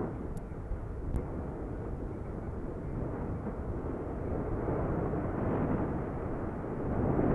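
Lava fountain erupting at close range: a continuous deep rushing, churning noise of spattering lava that grows louder toward the end, with two sharp clicks in the first second or so.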